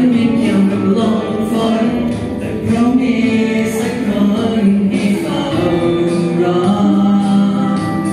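Karaoke: boys singing into handheld microphones over a backing track, both played through a loudspeaker.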